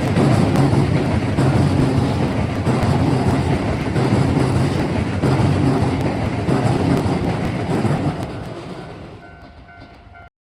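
Keisei 3000 series electric train passing at speed over a level crossing: a steady rumble with wheels clattering over the rail joints. The sound fades away over the last two seconds before cutting off.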